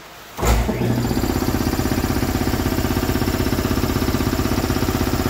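A machine engine or motor starts abruptly about half a second in and then runs steadily with a rapid, even pulsing.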